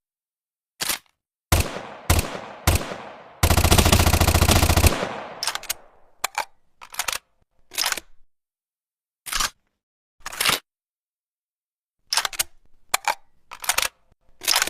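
Homemade sound effect imitating a La Coruña M41/44 submachine gun. Three single shots come about two seconds in, then a loud automatic burst of about a second and a half that fades away. Short, sharp clicks come before the shots and on through the rest.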